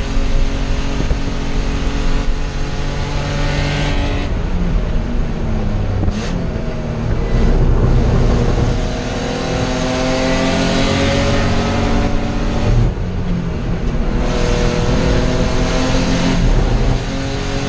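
Spec E30 BMW race car's engine, heard from inside the stripped, caged cabin, revving hard and easing off in turn, its pitch climbing and falling several times. The note drops off sharply about four seconds in and again about thirteen seconds in.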